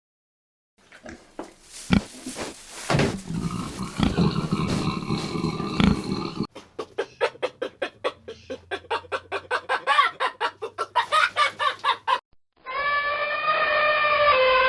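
Farm fowl calling: a stretch of quick, repeated clucks, then near the end a long rooster crow that falls away at its close.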